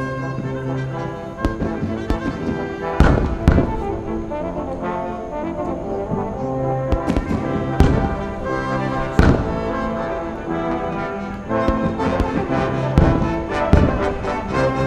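Fireworks shells bursting in a run of sharp bangs, the loudest about three, eight and nine seconds in, over orchestral music with long held chords.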